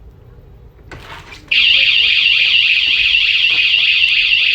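Tuya WiFi strobe siren going off about one and a half seconds in, set off by the door sensor opening while the alarm is armed: a very loud, high electronic wail warbling rapidly up and down, about four sweeps a second.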